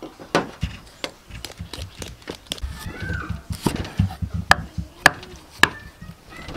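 Kitchen knife knocking on a wooden cutting board as the skin is pared off a green papaya: a string of sharp knocks, the loudest in the second half. A short animal-like call is heard about three seconds in.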